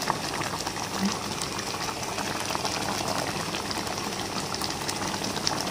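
Thick sambal sauce with giant freshwater prawns simmering in a pan: steady bubbling with many small pops.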